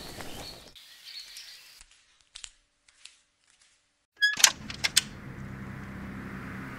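Outdoor ambience with faint bird chirps that fades out, then near silence. About four seconds in comes a loud clatter of sharp clicks and knocks with a brief squeak as an old wooden door's latch is worked and the door swung open, followed by a steady low hum.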